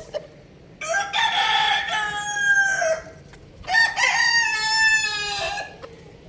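Rooster crowing twice, two long cock-a-doodle-doo calls less than a second apart.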